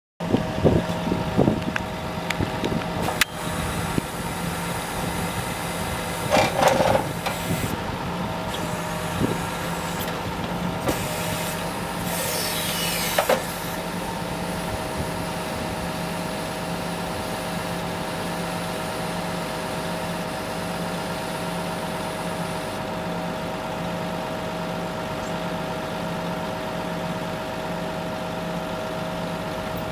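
Timber lorry's diesel engine idling steadily, with a few short knocks and bursts of noise over it in the first half.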